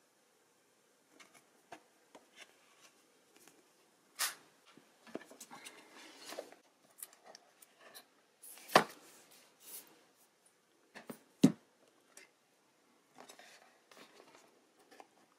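Hands handling the cardboard and paper packaging of a OnePlus 7 retail box: soft paper rustling, scraping and light clicks, broken by two sharp knocks about nine and eleven and a half seconds in.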